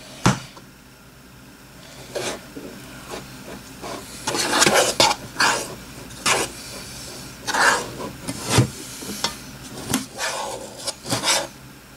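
A utensil stirring and scraping around a bowl of runny slime mixed with Play-Doh, with irregular scrapes and light knocks against the bowl that get busier about four seconds in.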